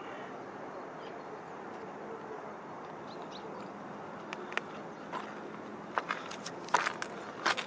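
Faint outdoor ambience: a steady soft hiss with a few faint bird chirps. From about four seconds in comes a run of light clicks and crunches close to the microphone, growing busier toward the end.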